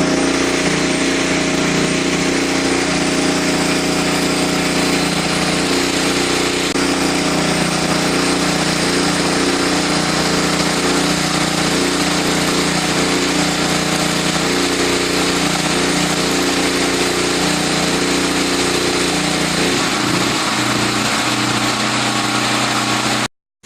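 Engine-driven CO2 welding generator running steadily. Its engine note shifts about 20 seconds in, and the sound drops out for a moment near the end.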